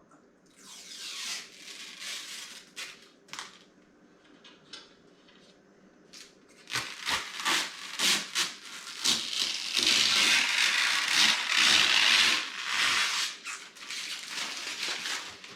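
Rubbing and wiping at marks on a PC case panel, a rough scrubbing hiss with small scrapes and clicks, light at first and growing louder and steadier after about six seconds.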